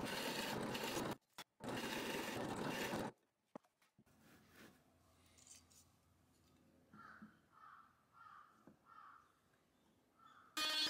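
A bench drill press boring a large hole into a wooden table leg, in two loud cutting bursts of about a second and a second and a half. Then faint handling and scraping of wood follows. Near the end a trim router starts up with a steady whine.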